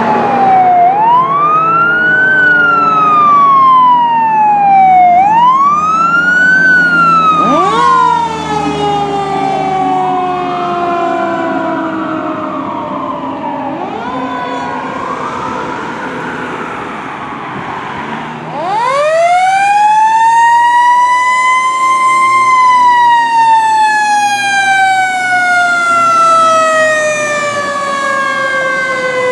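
Fire truck sirens wailing. A siren rises and falls twice, fainter wails follow, and then about two-thirds through a siren winds up sharply and slowly coasts down.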